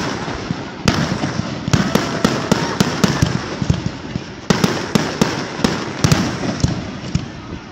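Aerial fireworks bursting overhead: many sharp bangs and crackles in quick succession, coming in bunches with a short lull a little past the middle.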